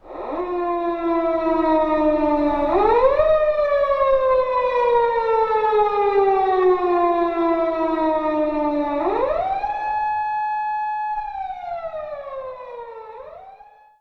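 Japanese police car siren wailing: a single tone that rises quickly about three seconds in and again about nine seconds in, each time sliding slowly back down, then fading out near the end.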